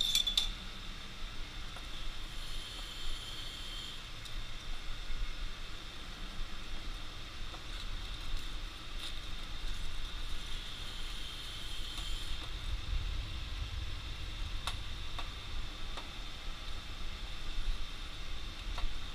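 Blacksmith's forge running with a steady rushing hiss and low rumble while a blade heats in it. There is a sharp click right at the start and a few faint clicks later on.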